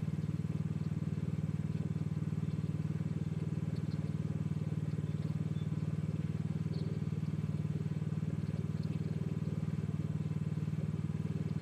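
Mini excavator engine running steadily, an even low drone with a fast, regular firing pulse.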